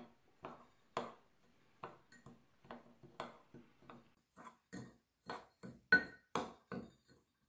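Metal spoon stirring crushed Oreo cookie crumbs and melted butter in a bowl, scraping and clicking against the bowl in a string of short strokes, about two or three a second.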